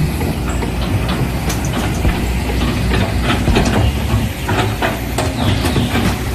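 Small electric motors of a remote-controlled miniature excavator and tractor running steadily, with many sharp clicks and rattles over a low rumble.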